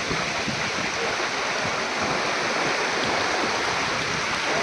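River water rushing in a steady flow, an even hiss with no breaks.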